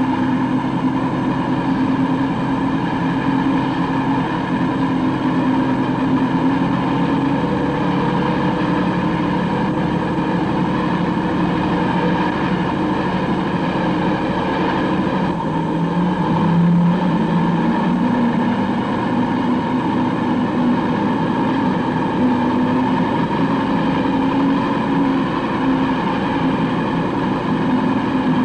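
Truck engine running steadily while driving, heard from the open load bed. The engine's pitch shifts briefly a little over halfway through.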